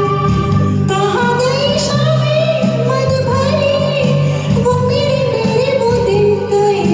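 A woman singing a Hindi film song over a karaoke backing track; her voice carries a wavering melody above steady instrumental accompaniment.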